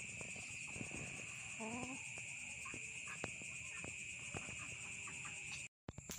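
Night insects trilling steadily in a continuous high-pitched chorus, with a few soft clicks and one brief low call about two seconds in. The sound drops out for a moment near the end.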